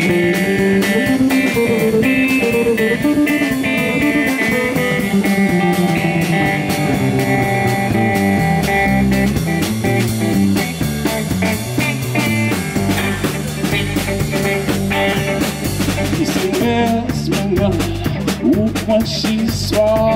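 Blues band playing live, with no singing: electric guitar over electric bass and a drum kit keeping a steady beat. A stepping bass line stands out from about halfway through.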